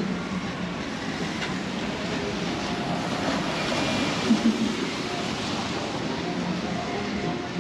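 Steady rain on a city street, with the hiss of a vehicle's tyres on wet pavement swelling about three to four seconds in. Two brief low thumps come just after the swell peaks.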